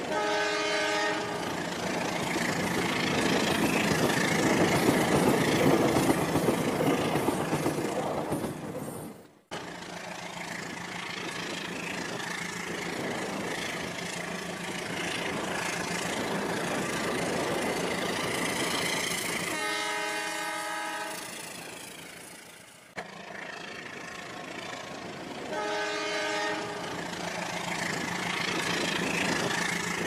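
Toy train running with a steady mechanical hum and its horn sound effect blaring three times: once at the start, once for about two seconds in the second half, and once more near the end.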